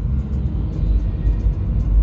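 Loud, steady low rumble of road traffic or a car in motion.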